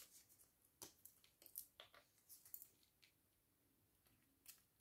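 Near silence with a few faint, short clicks and light taps: a small glass perfume sample vial and a paper scent strip being handled.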